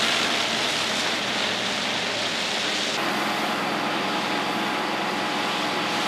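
A water tanker truck runs while a pressure hose jet fed from it sprays water onto the paving, making a steady rushing hiss. The sound shifts about halfway through, and a faint steady whine runs from then on.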